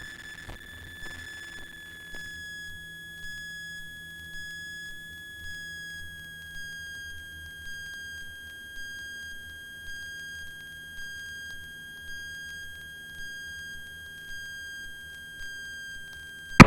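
A steady, high electronic whine with overtones, dipping slightly in pitch a few seconds in, over a faint low hum, heard through a light aircraft's cockpit audio feed between radio calls.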